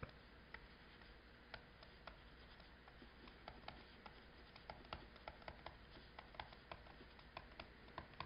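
Faint, irregular taps and light scratches of a stylus writing on a tablet screen, several small clicks a second.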